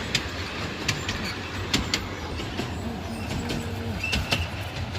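Train running nearby: a steady low rumble with sharp clicks and knocks about once a second.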